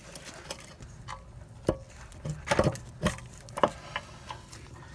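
Irregular metallic clicks and knocks as a new CV axle's splined outer end is rotated and worked into the wheel hub assembly, the loudest few in the middle.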